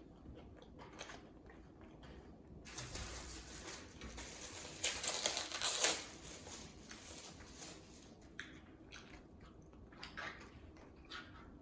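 A person eating close to the microphone: biting and chewing sounds, loudest and busiest about three to six seconds in.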